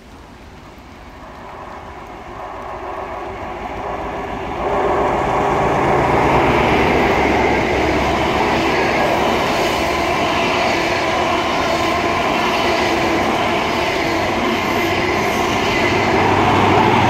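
An InterCity 125 HST with Class 43 diesel power cars passes through the station at speed. The rumble of its wheels on the rails grows over the first five seconds as it approaches, then holds loud and steady as the coaches go by. A deeper engine drone comes in near the end as the rear power car passes.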